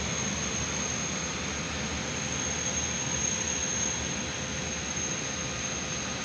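Freight train of open wagons rolling past at slow speed: a steady rumble with a thin high whine over it.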